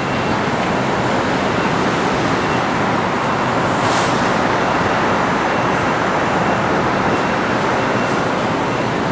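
Steady wash of city street traffic noise, with a brief brighter hiss about four seconds in.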